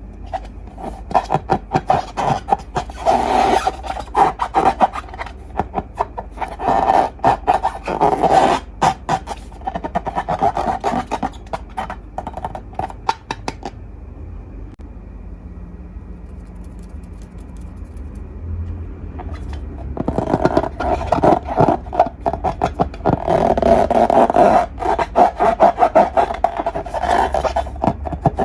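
Slime being worked by hand, giving dense sticky crackles, clicks and squelches. The sound comes in two long spells, with a pause of about six seconds in the middle where only a faint steady hum remains.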